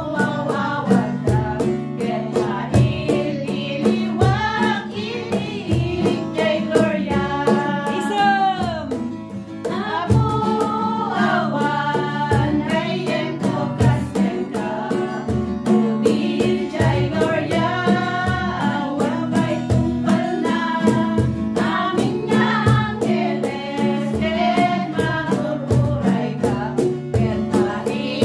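Women singing an Ilocano Christian worship song together, accompanied by a strummed acoustic guitar keeping a steady rhythm.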